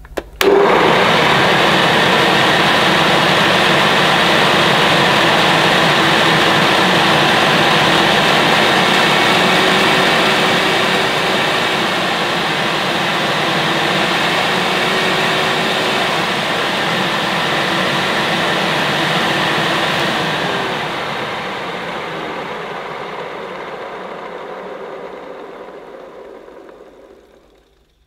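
Hoover Ranger Senior dirty-fan upright vacuum cleaner switched on: the motor starts abruptly and runs at full speed with a steady whine, easing slightly about ten seconds in. It is switched off about twenty seconds in and winds down gradually to a stop. The motor sounds pretty good, with no sign of an electrical or mechanical fault.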